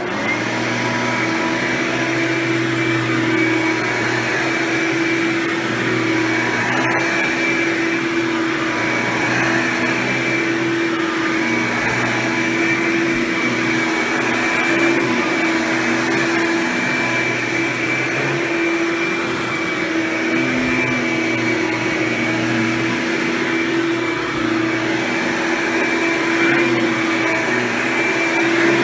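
Hoover Power Drive Supreme upright vacuum cleaner running steadily while vacuuming, with its Quadraflex brush roll fitted and the self-propelled drive on. It gives a steady motor whine, with one brief click about seven seconds in.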